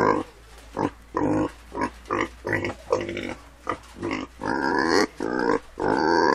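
Pig grunting: a quick run of short grunts, about two a second, ending in a longer grunt near the end.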